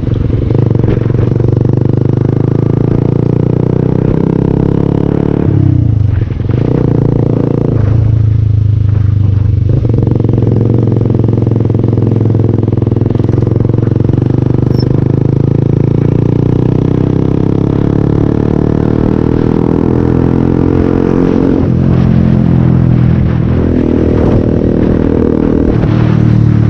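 Yamaha R15's single-cylinder engine and noisy silencer running loud and steady while being ridden, easing off and picking up again a few times.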